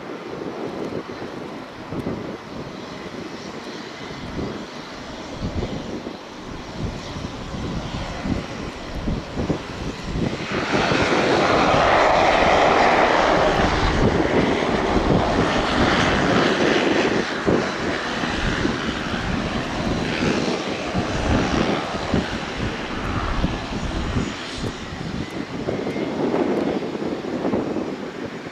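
Air Tractor AT-802F Fire Boss's PT6A turboprop engine running at taxi power, propeller turning. It grows much louder about ten seconds in as the plane passes close, then stays loud with some rise and fall and eases near the end.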